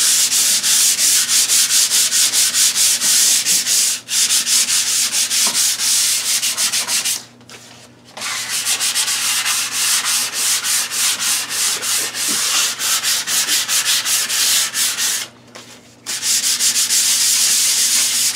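Dried drywall joint compound being hand-sanded with a sanding block: fast, scratchy back-and-forth strokes, pausing briefly about seven seconds in and again about fifteen seconds in. This is the final light sanding that smooths the patch ready for paint.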